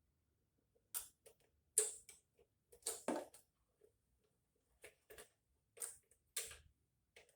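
Scattered light metallic clicks and clinks of a socket, ratchet and small mounting bolts being handled while a carburetor is bolted onto a small engine, about a dozen irregularly spaced clicks with short pauses between them.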